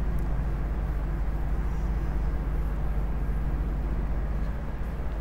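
Steady low rumble and hum of background noise.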